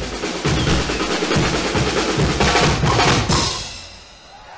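Guggenmusik percussion section (bass drums, snare drums and hand cymbals) playing a loud closing passage, with cymbal crashes near the end, then stopping about three and a half seconds in.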